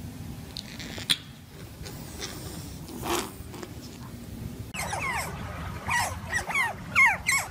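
Small otters chirping: a quick run of short, high squeaks that each slide downward in pitch, beginning about two-thirds of the way in.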